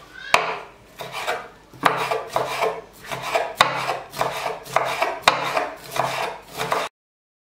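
Kitchen knife dicing strips of green pepper on a wooden cutting board: a run of quick knife strikes against the board, about three a second, that cuts off suddenly to dead silence near the end.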